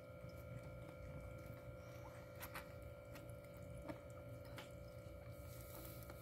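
Faint wet clicks and smacks of a mother cat licking her newborn kittens, a handful of them scattered through, over a steady low hum.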